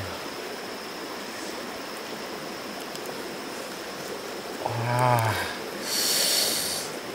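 Stream water running steadily, with a thin steady high-pitched tone over it. About five seconds in comes a short low vocal sound, and right after it a brief scratchy hiss.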